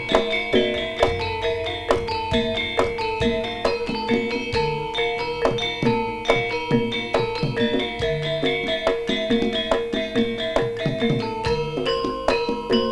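Javanese gamelan music for Jaranan: struck metallophones and gong-chimes ringing in a quick, steady pattern, with drum strokes underneath.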